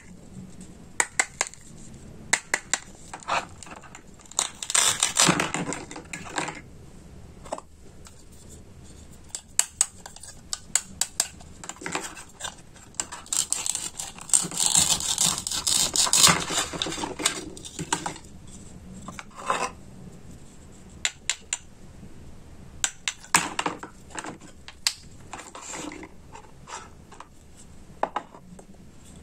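Plastic toy fruits and vegetables tapping and clacking against a plastic cutting board and wooden tray under a wooden toy knife, with sharp clicks throughout. There are two longer scraping stretches as the knife cuts through a toy, one about five seconds in and a longer one from about thirteen to eighteen seconds.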